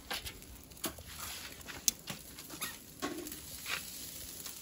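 Scattered light clicks and taps as food is laid onto the wire grate of a charcoal grill, with one sharp click about two seconds in.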